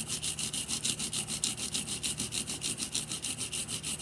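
Rapid, even back-and-forth scrubbing at about six or seven strokes a second, cleaning the circuit board around the Walkman's tiny ribbon-cable connector pins.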